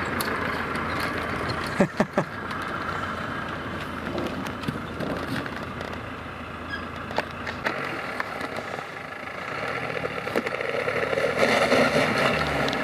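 Land Rover off-roaders driving a rough dirt track: steady engine and road noise, with a couple of sharp knocks about two seconds in. It grows louder near the end.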